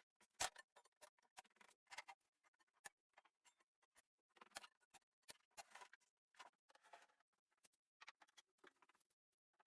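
Near silence with faint, irregular clicks and light knocks from wood pieces and tools being handled on the workbench.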